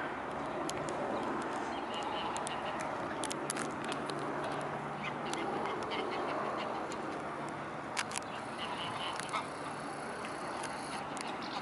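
Waterfowl giving short, sharp calls over a steady rushing background noise.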